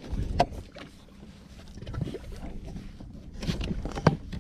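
Two sharp knocks aboard a small wooden boat, one near the start and one near the end, over low rumbling handling noise and a faint steady low hum.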